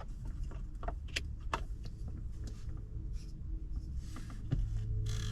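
Low steady hum inside a car cabin, with scattered light clicks and taps from handling. The hum grows louder about four and a half seconds in.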